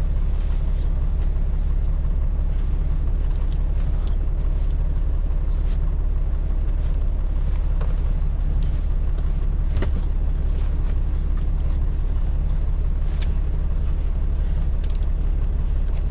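Semi truck's diesel engine idling, a steady low rumble heard inside the sleeper cab, with a few light clicks and knocks from things being handled.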